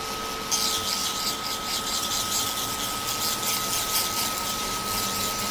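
Small electric dust-collector fan running with a steady hum and thin whine. About half a second in, scratchy, fluttering sanding of a 3D-printed plastic part starts over it and keeps going.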